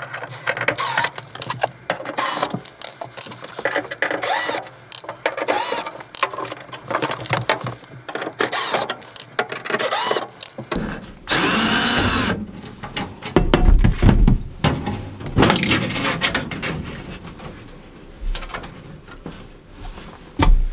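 DeWalt 18V cordless drill-driver running in short bursts that rise and fall in pitch as it backs out the screws holding the RV microwave and its trim, with one longer, steadier run about eleven seconds in. After that come irregular knocks and rattles of the loosened metal panel being handled, and a sharp knock at the very end.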